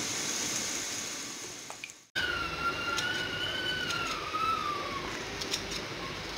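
A steady hiss that fades and cuts off about two seconds in, then a faint wavering whistle-like tone drifting slowly down in pitch. Near the end, a few sharp snips of kitchen scissors cutting fresh coriander leaves.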